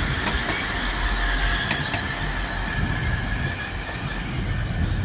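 Class 180 diesel multiple unit running into the station: a steady rumble of wheels on rail with a thin, high, steady squeal over it.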